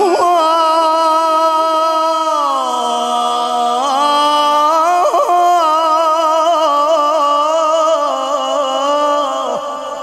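A man's voice in melodic Quran recitation (tajweed), holding one long ornamented phrase with a wavering pitch. The pitch steps down about two seconds in, and the phrase fades near the end.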